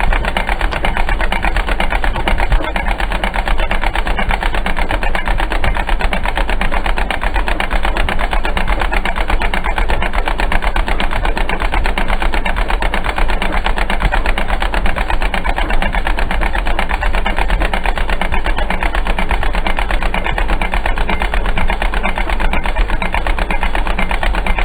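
1952 Massey Harris Pony 812 tractor's small four-cylinder engine running steadily, with a rapid, even beat of firing.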